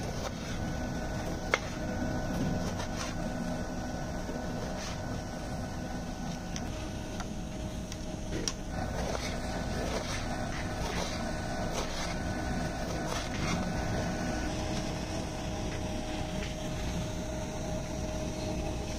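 Knife slicing tomatoes on a wooden cutting board, giving a few sharp taps of the blade against the board, over a steady mechanical hum.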